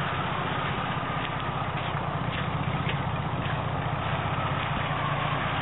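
A 1990 Jeep Cherokee's 4.0-litre inline-six engine idling steadily.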